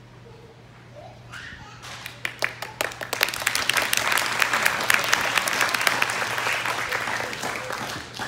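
Audience applause: scattered claps begin about two seconds in, swell into a full round of clapping, then taper off near the end.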